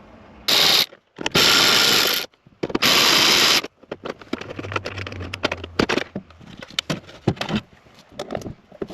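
Ratchet wrench clicking in three quick runs as dash screws are backed out. After that come scattered clicks and scrapes of tools and dash parts being handled.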